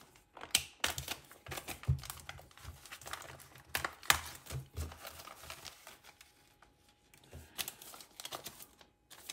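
Plastic retail packaging being cut and pulled open with a small utility knife: crinkling and tearing of the plastic bag, with scattered sharp clicks.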